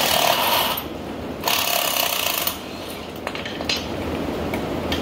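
A hand-held power tool running in two bursts of about a second each, the first at the start and the second about a second and a half in, then a few light clicks and knocks of tools on metal.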